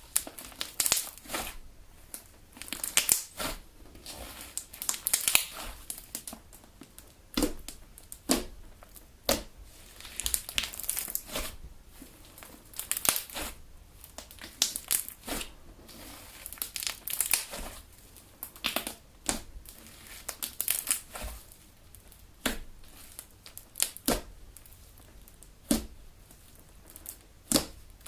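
Homemade glitter glue slime being kneaded and stretched by hand: irregular bursts of sticky squelches, pops and crackles of trapped air, coming every second or two.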